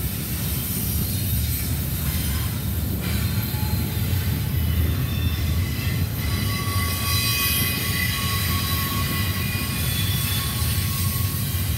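CSX double-stack intermodal freight train rolling past at close range: a steady rumble of wheels on rail, with thin high-pitched wheel squeals coming and going.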